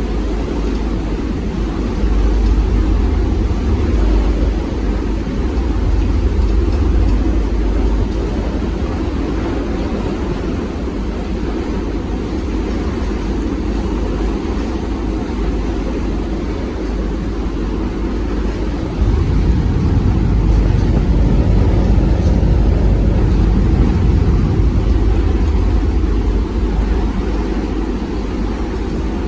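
Wind buffeting the microphone: a steady low rumble that swells in gusts, most strongly from about two-thirds of the way in.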